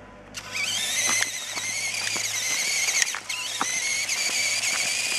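Electric RC motor and gear drive of a LEGO Technic mini buggy whining at high speed. It starts about half a second in with a rising pitch, drops briefly a little past the middle, then rises again as the buggy accelerates. Scattered ticks run through the whine.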